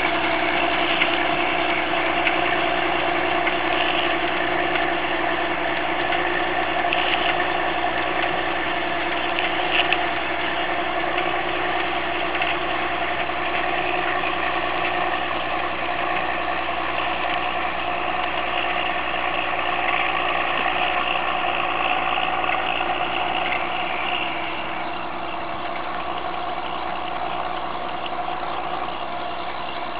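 Fiatagri 160-90 DT tractor's six-cylinder turbo diesel engine running steadily under load while pulling a mounted tillage implement through the soil. It grows a little fainter about three-quarters of the way through as the tractor moves off.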